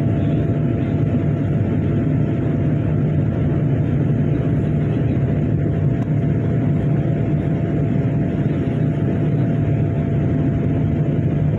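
Steady engine and airflow noise heard inside the cabin of a Boeing 787 Dreamliner: a deep, even rumble with a faint steady hum on top.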